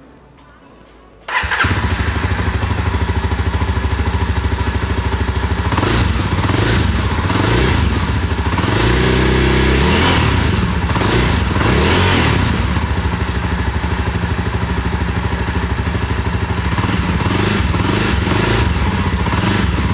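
A Jawa Perak's 334 cc single-cylinder engine starts about a second in and idles through the stock exhaust, dB killers still fitted. Between about six and twelve seconds in the throttle is blipped several times, each rev rising and falling back, then it settles to a steady idle.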